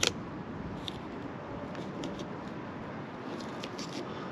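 Masking tape being pulled off its roll and laid along a window edge: a sharp click right at the start, then faint, scattered crackles of tape peeling, over a steady low background noise.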